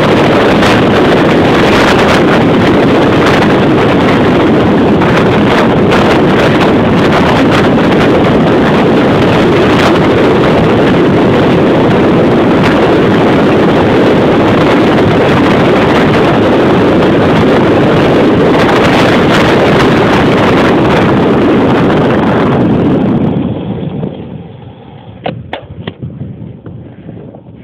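Wind buffeting the microphone during a fast downhill bicycle ride, a loud steady rush. It falls away sharply near the end, leaving a few sharp clicks.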